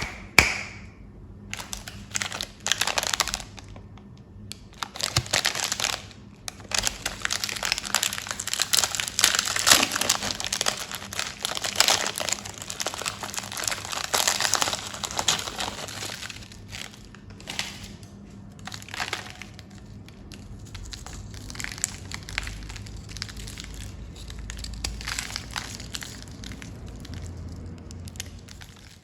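Candy wrappers and packaging being handled and unwrapped: a long run of crinkling and crackling with a few short pauses near the start, busiest through the middle.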